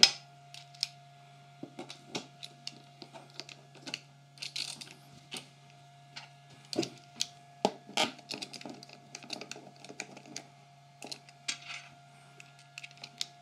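Hand screwdriver and screws being handled and driven on a metal table saw top and fence: a run of small irregular clicks, taps and short scrapes, with a sharp knock at the very start, over a faint steady hum.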